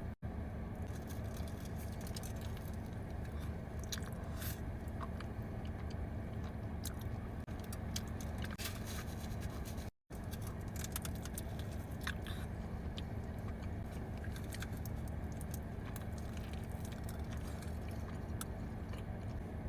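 Close-up chewing and biting of a Chipotle burrito: many small wet mouth clicks over a steady low hum. The sound cuts out briefly twice, once just after the start and again about halfway through.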